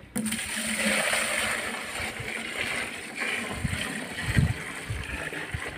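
A steady stream of liquid pouring and splashing into a plastic bucket: blue copper-sulfate mineral solution being added onto lime milk while mixing Viçosa broth. A few low bumps sound under the pour.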